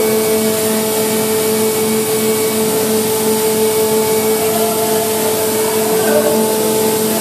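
Tunnel boring machine's machinery running: a loud steady hum with a slight regular pulse, over a constant hiss.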